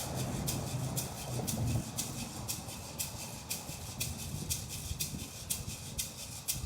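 Gourd rattles shaken in a steady beat of about three strokes a second, the rattle accompaniment of Kumeyaay bird songs.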